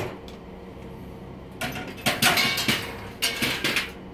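Steel bicycle spokes being cut out of an aluminium rim with side cutters: a run of sharp metallic clicks, snaps and rattles as the spokes clink against the rim, starting about a second and a half in.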